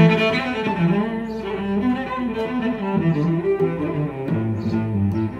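Background music: a melody on a low bowed string instrument such as a cello, its notes dropping lower about four seconds in.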